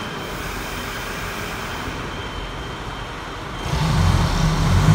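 Vehicle engine running at low revs while the vehicle is manoeuvred through a tight turn, then revving louder and deeper about three and a half seconds in.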